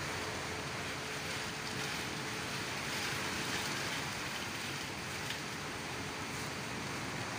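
Typhoon rain and wind outside a window: a steady rushing downpour and gusts, swelling a little about three seconds in.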